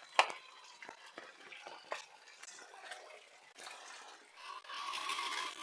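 Footsteps on a wet, muddy lane: scattered wet taps and clicks, the sharpest just after the start. Near the end comes a louder rushing noise lasting about a second.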